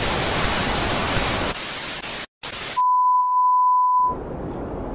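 Television static hiss that cuts out briefly, then a steady high test-tone beep for about a second and a half, followed by a low rumbling noise.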